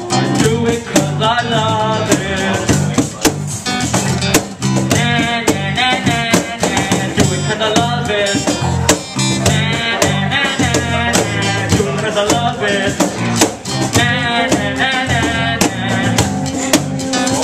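A small live band playing: acoustic guitar strumming, a bass line and a box drum played by hand keep a steady beat. Over it runs a wordless lead part from the frontman, who cups a handheld microphone to his mouth.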